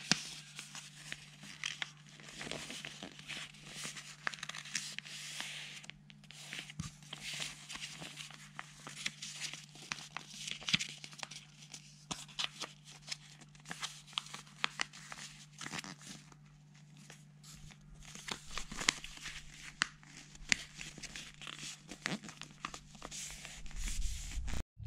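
A sheet of white paper being folded and creased by hand: irregular rustling and crinkling with many short, sharp crackles as the folds are pressed flat.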